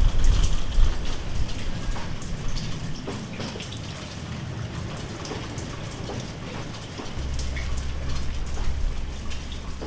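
Rain falling steadily, with separate drops heard hitting a surface. A low rumble runs underneath, strongest at the start and again from about seven seconds in.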